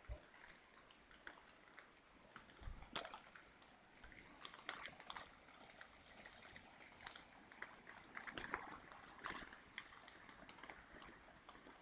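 Near silence, with faint scattered ticks and crackles.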